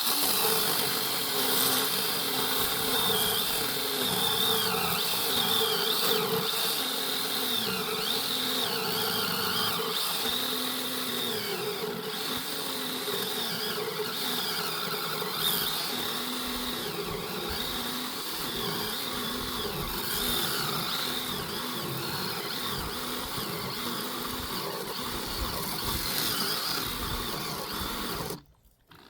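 Chainsaw running and cutting firewood, its pitch rising and falling again and again as it bites into the wood and eases off. It cuts off suddenly near the end.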